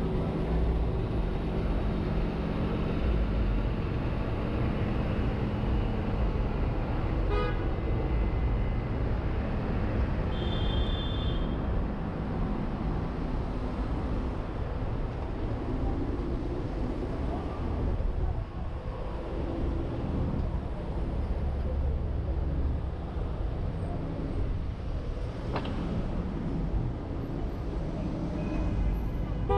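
City street traffic heard from a camera mounted on the outside of a moving car: a steady low rumble of engines and tyres. A car horn honks briefly about seven seconds in and again right at the end, with a short high squeal a little after ten seconds.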